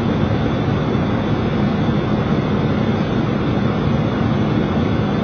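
Steady flight-deck noise of a Boeing 737 on final approach: an even rush of airflow over the cockpit with a low engine hum beneath it, unchanging throughout.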